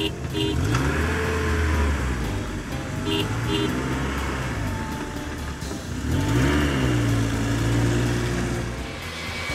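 Dubbed car engine sound effects: an engine revs up about half a second in and runs on, then revs up again near six seconds and holds. Short double horn beeps sound at the start and about three seconds in.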